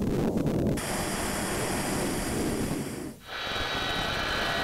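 Rushing airflow and engine noise of a C-17 Globemaster III in flight for about three seconds. After a brief dip, the steady whine of the C-17's Pratt & Whitney F117 turbofan engines running on the ground, with high thin tones over the noise.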